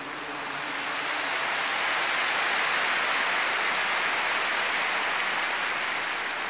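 Large crowd applauding, swelling over the first couple of seconds, holding, then fading away near the end.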